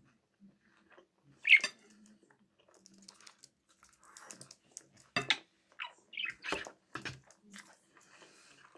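A pet budgerigar gives short chirps among sharp clicks of a metal fork against an enamel bowl. The loudest clicks come about a second and a half in and again around five to seven seconds in.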